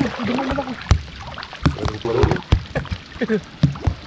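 Shallow seawater splashing and sloshing as a gill net is hauled in by hand through the water, with many short sharp knocks and splashes. Indistinct voices break in now and then.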